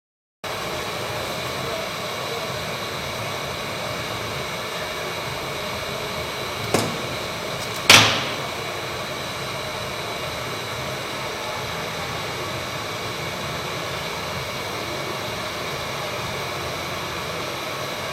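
Hot air rework gun blowing steadily with an even hiss, heating the solder pads of a phone mainboard at about 255–260 °C to preheat them before a chip is soldered on. Two sharp clicks about a second apart midway through.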